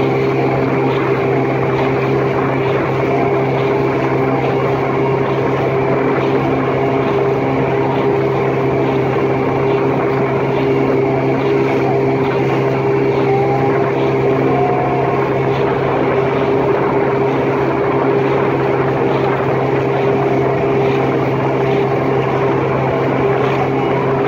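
Boat motor running steadily at a constant pitch, loud and close, with a faint regular ticking on top.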